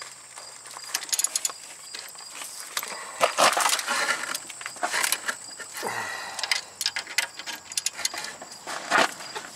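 Hand tools clinking on a car's sway bar link and strut: a combination wrench and socket knocking against the link nut and bracket in irregular metallic clicks, with two sharper clanks about three seconds in and near the end.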